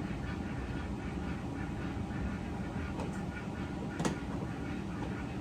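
Phillips screwdriver backing out the screws that hold a plastic door-panel cup holder, with one sharp click about four seconds in.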